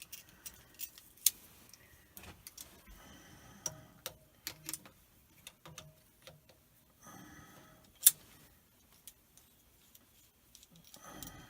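Irregular metal clicks and clinks of hand tools, vise-grip pliers and a wrench, working at the drain bolt on the side of a water pump, with one sharp click about eight seconds in.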